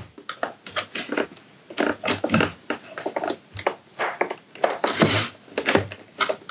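A screwdriver prying open the plastic top cover of a Roborock S50 robot vacuum along its seam: a run of irregular plastic clicks, creaks and short scrapes.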